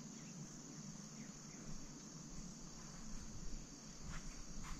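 Faint, steady high-pitched insect chorus, with a light tap near the end.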